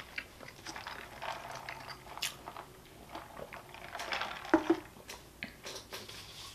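Close-miked chewing of a mouthful of Wendy's Baconator (beef patties, cheese and bacon): irregular wet mouth clicks and smacks. About four and a half seconds in come two short, louder knocks.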